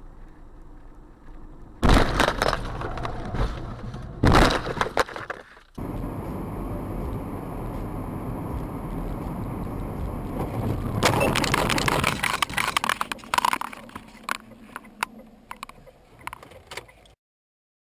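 Car crashes recorded by dashboard cameras: a sudden loud impact about two seconds in and another a couple of seconds later. Then the steady road noise of a moving car, and about eleven seconds in a long crash of crunching, cracking glass and rattling as the car overturns and its windscreen cracks, thinning to scattered clatter.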